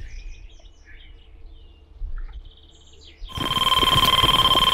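Faint bird chirps, then about three seconds in a carp fishing bite alarm suddenly sounds a continuous steady tone over a loud rushing noise. The unbroken tone signals a run: a fish taking line.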